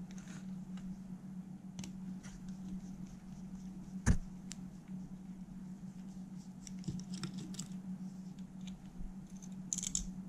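Small clicks and taps of a screwdriver and fingers working on a cassette deck's metal tape mechanism and circuit board, with one sharp knock about four seconds in and a quick cluster of clicks near the end. A steady low hum runs underneath.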